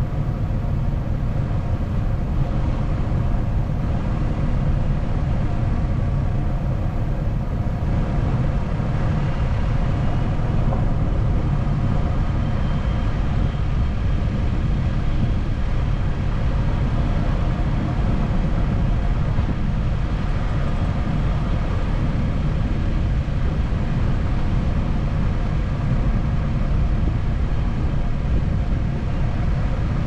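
Car driving slowly along a snow-covered road: steady low rumble of tyres and engine, heard from inside the car.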